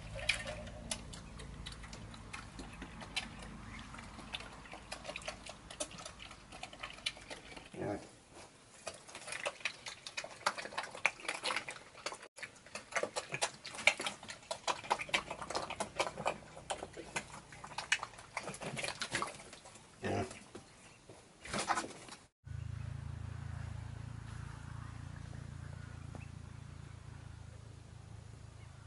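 Pigs eating at a trough: a dense, irregular run of chewing and smacking sounds. It stops suddenly about two thirds of the way through and gives way to a steady low hum.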